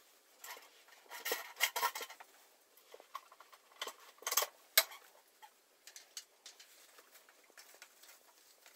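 Light metallic clinks and rattles from an aluminium-tube costume frame and its hip harness as they are handled and adjusted: two busy clusters of clicks about a second in and around four seconds in, then scattered single ticks.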